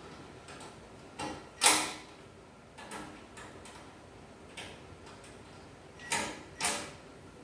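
Scattered light clicks and knocks of tools and bandsaw parts being handled during an adjustment, the loudest about two seconds in and two more close together near the end.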